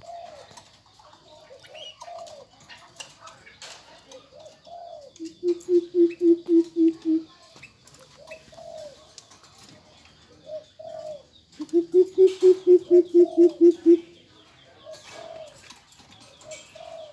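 Greater coucal hooting: two runs of deep, evenly spaced 'hoop' notes, about five a second, the first of roughly ten notes about five seconds in and a longer one of about a dozen notes near twelve seconds.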